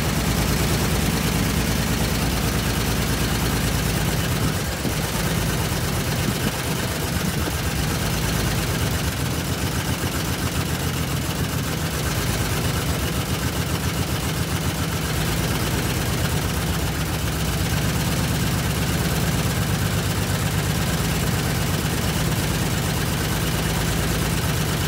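An engine idling steadily at an even speed throughout.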